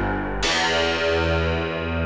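Background music of held keyboard chords, a new chord struck about half a second in.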